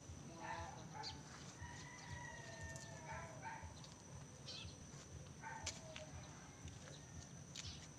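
Faint backyard chickens clucking, with one longer drawn-out call about two seconds in, over a thin steady high-pitched whine.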